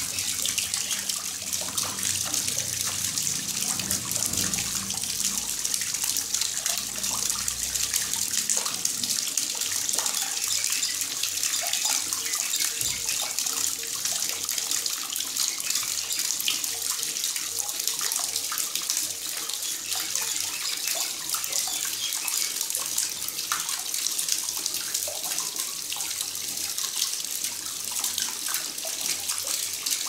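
Small homemade decorative waterfall: a thin stream of water falling and splashing steadily into a shallow basin, a constant hiss.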